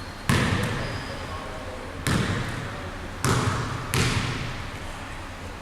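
Basketball bouncing on the court floor: four separate bounces at uneven intervals, each one echoing.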